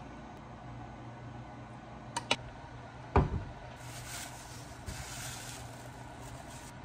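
Plastic bags worn over the hands crinkling and rustling as they knead and squeeze sujebi dough in a glass bowl. Two sharp clicks and a thump come before the crinkling starts, about two to three seconds in, over a low steady hum.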